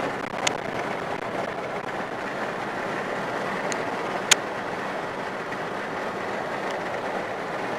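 Steady road and wind noise heard inside a car's cabin at highway speed, with a few short, sharp clicks, the sharpest just past four seconds in.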